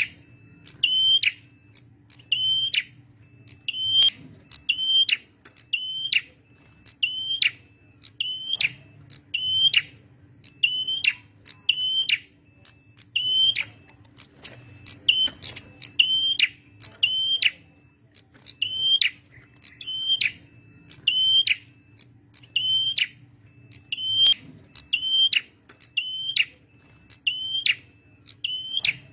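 Male prenjak merah calling vigorously: a short, sharp, high note with a downward sweep, repeated about once a second, over a faint steady low hum.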